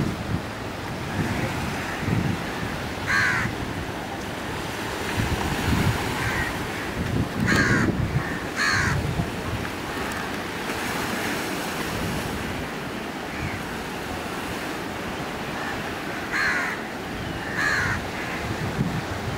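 Sea water washing along the shore, with wind buffeting the microphone. A bird calls five times: once, then twice in quick pairs.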